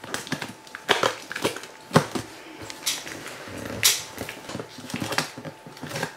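Cardboard shipping box being handled: a string of sharp taps and knocks, about one a second, with light rustling and crinkling of the box and its plastic packing-slip pouch.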